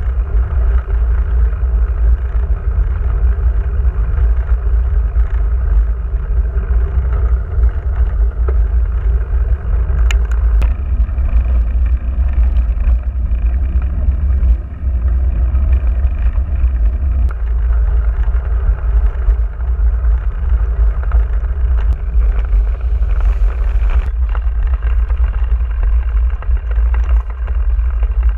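Steady wind rumble on an action camera's microphone mounted on a moving mountain bike, over the tyre noise and rattle of a Giant Trance 27.5 rolling on a gravel road.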